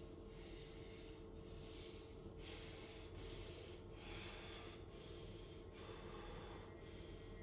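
Faint, quick, ragged breathing from a man, about one breath a second, over a steady low hum.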